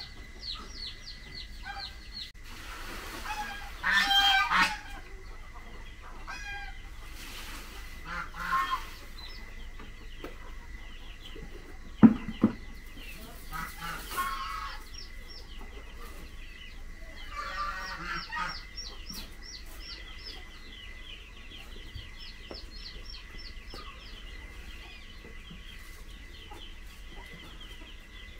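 Chickens clucking in several short, loud bouts over constant rapid high-pitched chirping, with one sharp knock about twelve seconds in.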